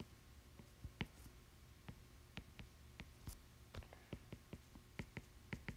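Faint, irregular clicks of a stylus tip tapping and drawing on an iPad's glass screen as a grid is drawn, more frequent in the second half, over a low steady hum.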